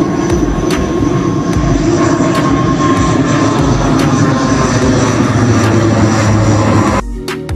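Twin-turboprop airliner flying low overhead: a loud, steady drone of engines and propellers with a held tone over it. About seven seconds in, it cuts off suddenly and music begins.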